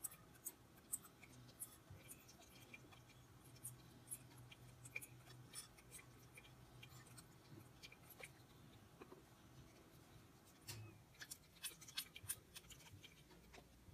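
Faint, scattered small clicks and taps of a plastic toy bottle at a Baby Alive doll's mouth, with a quick cluster of them near the end, over a low steady hum of room appliances.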